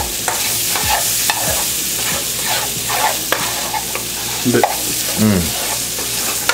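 Sliced turkey sausage sizzling in a nonstick frying pan while a metal spoon stirs it, with repeated scrapes and clicks of the spoon against the pan. About five seconds in, a brief sound slides down in pitch.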